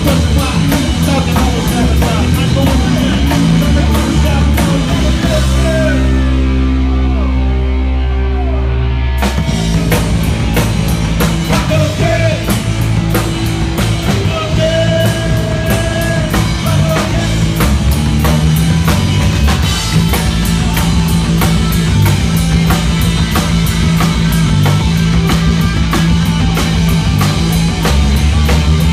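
Live rock band playing loud: electric guitar, bass and drum kit with cymbals. About six seconds in the drums drop out for a few seconds of held chords, then the full band crashes back in.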